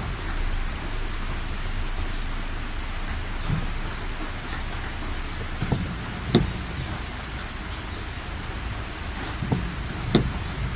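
Heavy rain pouring steadily, with a low rumble underneath and a few sharp drop impacts standing out, the loudest about six seconds in and near the end.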